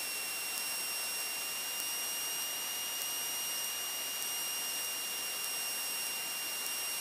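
Steady hiss with a thin, steady high-pitched whine: the open line of a light aircraft's headset intercom, with no engine rumble coming through.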